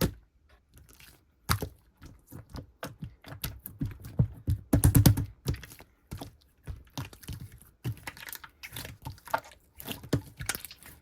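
Clear slime being squeezed and poked by hand, making scattered wet clicks and pops, with a fast run of clicks about halfway through.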